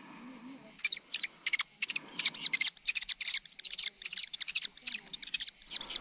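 Common kestrel chicks in the nest calling, short high-pitched screechy notes in quick irregular runs of several a second, from about a second in until shortly before the end.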